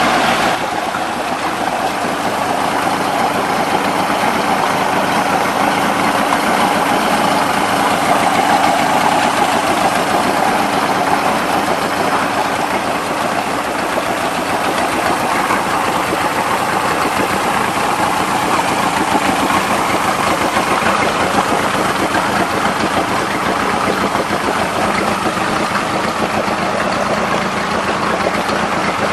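1993 Mercury Mariner 115 two-stroke outboard motor running steadily on a test stand, its lower unit churning water in a test barrel.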